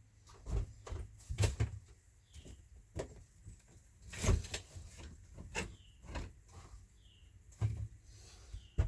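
Irregular metallic clicks and knocks of needle-nose pliers and wires being worked inside a metal 240-volt safety switch box, with one louder knock about four seconds in.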